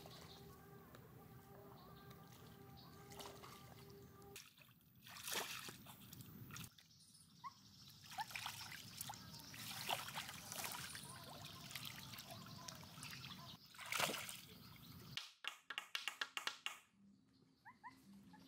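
Water sloshing and splashing in short edited bits. Steady outdoor calls come first, and a quick run of short clicks or taps follows near the end.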